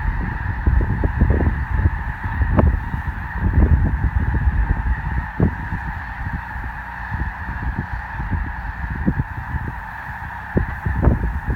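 A huge flock of snow geese calling at once, a dense, steady din of overlapping honks with no single call standing out, over an uneven low rumble.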